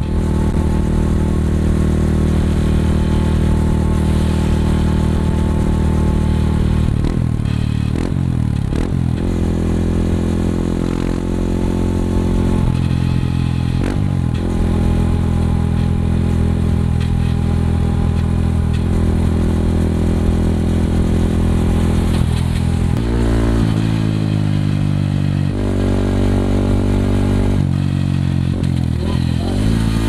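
Yamaha WR155R's single-cylinder four-stroke engine running through a Norifumi Rocket 4 aftermarket exhaust while the bike is ridden, the engine note rising and falling with throttle and gear changes several times, most clearly past twenty seconds and near the end.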